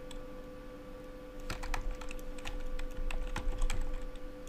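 Typing on a computer keyboard: a quick run of key clicks starting about a second and a half in, over a faint steady hum.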